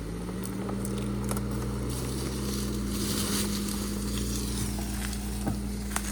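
Car engine running under load, its pitch rising a little in the first half-second and then holding steady, with a few sharp knocks over the top as the car works along a rough track.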